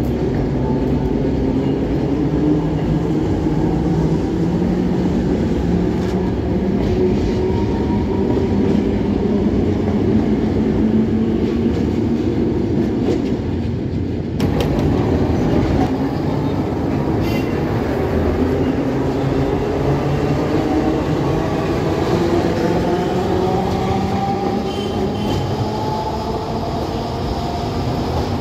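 Alexandria Raml tram running on street track: electric motor whine gliding up and down in pitch over the rumble and clatter of steel wheels on the rails. The sound changes abruptly about halfway through.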